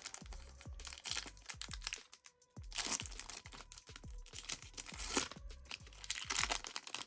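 Foil trading-card pack wrapper being torn open and crinkled in several bursts, over background music with a steady beat.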